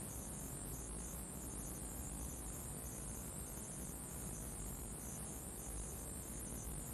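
Ambient electronic drone from a film's soundtrack: a steady low hum and hiss, with a high hiss that pulses in a regular rhythm.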